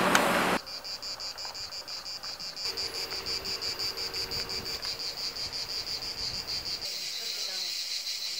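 Cicadas chirring in a steady, pulsing high drone, about four pulses a second. In the first half-second, louder street noise with a low hum cuts off abruptly.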